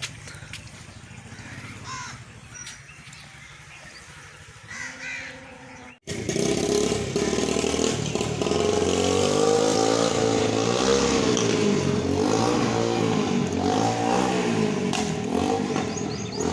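A few bird calls over quiet outdoor background, then, after a brief break about six seconds in, a close engine running loudly with its pitch rising and falling.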